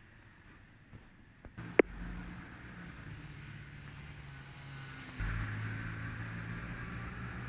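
A vehicle running at a railway level crossing: a steady low hum comes in about a second and a half in, with one sharp click just after it, and grows louder about five seconds in.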